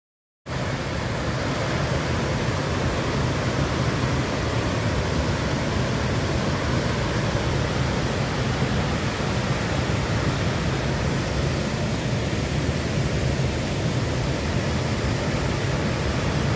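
Housatonic River waterfall and the rapids below it rushing steadily, the river running high and swollen from recent rain. The sound starts suddenly about half a second in, out of silence.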